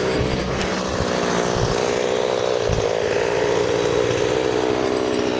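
Chainsaw engine running steadily and loudly, its pitch sagging slightly a second or two in and picking back up.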